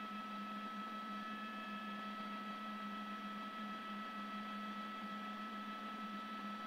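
Steady hum with a few constant tones under a faint hiss: news helicopter cabin noise picked up through the reporter's microphone on the live feed.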